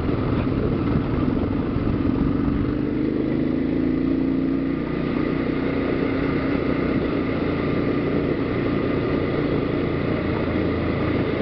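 Kawasaki KLR dual-sport motorcycle's single-cylinder engine running steadily under way on a gravel trail, its note rising slightly and easing off about halfway through.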